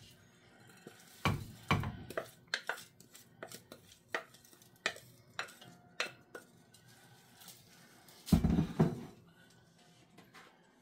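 Wooden spatula tapping and scraping against a glass bowl and a metal pot, a quick irregular series of clicks and knocks as chopped pepper is scraped out onto raw meat, with one louder thud about eight seconds in.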